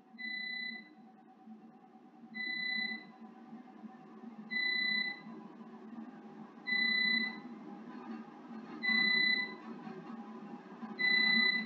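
Electronic beeper from the antenna-measurement equipment sounding a short high-pitched beep about every two seconds, six times and getting louder, over a steady low hum as the antenna positioner turns during pattern acquisition.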